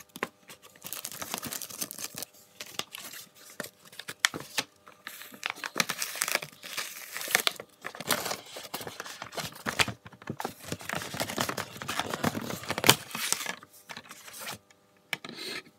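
Clear plastic bag packaging crinkling and tearing as it is pulled open by hand, in irregular bursts with short pauses.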